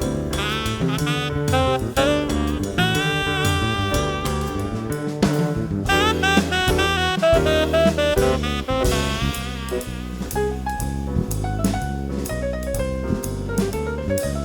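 Upbeat jazz background music: a saxophone playing the melody over drum kit and bass.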